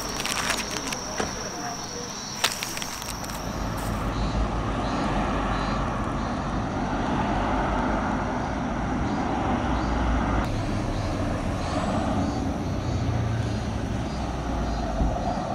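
Thin plastic bag crinkling and rustling for the first couple of seconds, then outdoor street ambience with a steady low rumble of traffic.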